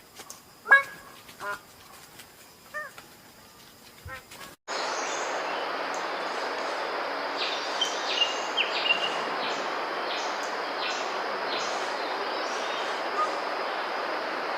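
Birds-of-paradise giving loud, separate honking calls with a ringing, harmonic quality. A little over four seconds in, the recording cuts abruptly to a steady rainforest hiss, with short chirps and calls from birds over it.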